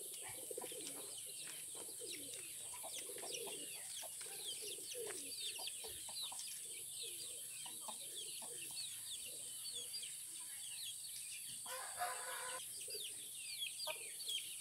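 Chickens clucking, with one louder, drawn-out chicken call about twelve seconds in. Small birds chirp throughout in quick falling notes over a steady high hiss.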